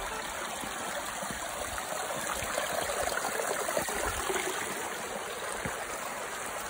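Small mountain stream running and trickling among rocks, a steady rushing water noise, with a few soft footsteps on stone.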